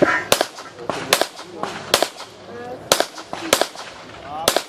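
A string of handgun shots fired in quick succession during a practical-shooting stage, about seven sharp reports irregularly spaced from a few tenths of a second to about a second apart.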